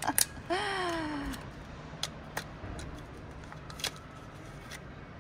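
A voice lets out a long, falling 'ohh' about half a second in. Then come a few scattered sharp clicks of plastic toy packaging being handled and opened.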